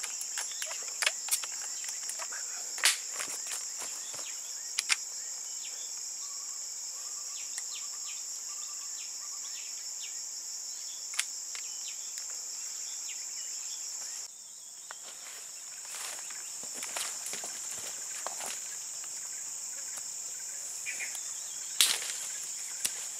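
Steady high-pitched drone of insects in tropical forest, which partly drops out abruptly a little past halfway. Scattered sharp clicks and snaps sound over it, the loudest about three seconds in and near the end.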